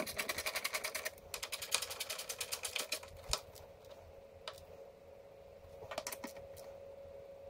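Ratchet wrench clicking in two quick runs as 10 mm bolts are driven in, then a few single clicks.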